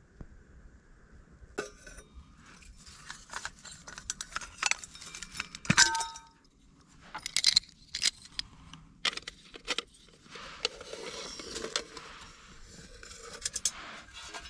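Small metal objects being handled, clinking and rattling in irregular bursts, with one louder ringing clink a little under halfway through.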